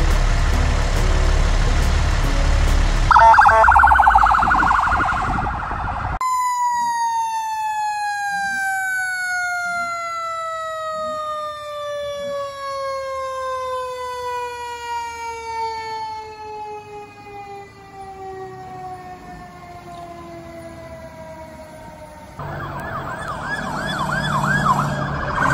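Fire truck sirens in a run of short clips. First a diesel engine idling, then a fast electronic yelp. After a cut comes a single siren tone falling slowly and steadily for about fifteen seconds as it winds down, and a fast yelp starts again near the end.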